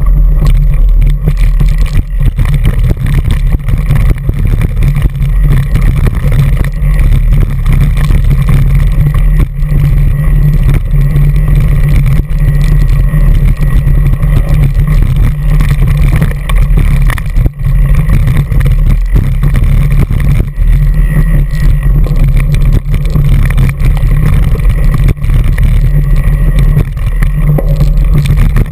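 Heavy low rumble of wind and vibration on a handlebar-mounted GoPro Hero2 as an Orange Five mountain bike rides fast over gravel and rocky singletrack. Constant small knocks and rattles from the bike jolting over stones.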